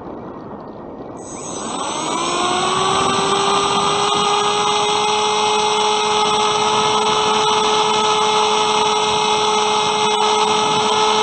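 Bixler 2's brushless electric motor and pusher propeller spooling up about a second in, its whine rising in pitch and then holding steady, with wind rushing past the airframe underneath.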